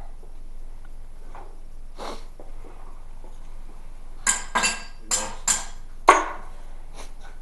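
Metal objects clinking against metal, five sharp ringing clinks in quick succession about two-thirds of the way in, the last the loudest.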